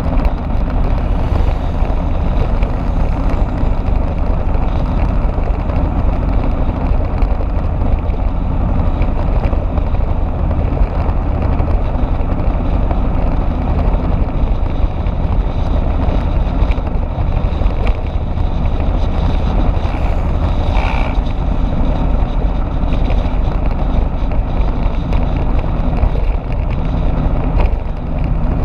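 Steady wind and road rumble of a motorbike ride at speed, heavy and low, with wind buffeting the camera microphone. A brief higher sound cuts through about two-thirds of the way in.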